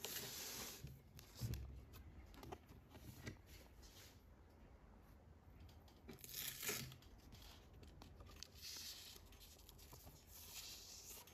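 Faint handling noise: soft rustles and brushing in several short bursts as a hand moves over the radio cassette recorder and the recording phone, with a soft knock about a second and a half in and the loudest rustle past the middle.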